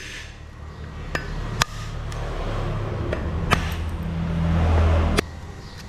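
Sharp knocks of a blade striking the hard shell of a dry coconut, several irregular strikes, over a low hum that swells and cuts off suddenly about five seconds in.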